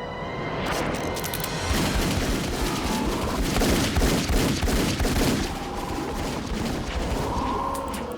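Dense film gunfire: many rapid shots running together into a continuous volley over a tense orchestral score. It builds about two seconds in and cuts off abruptly at the end.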